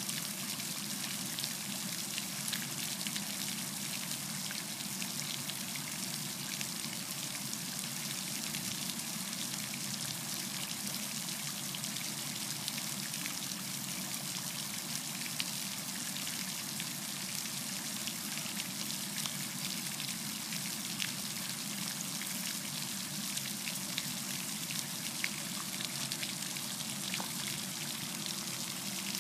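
A pool fountain's central spray jet, its water falling back onto the pool surface in a steady splashing of droplets.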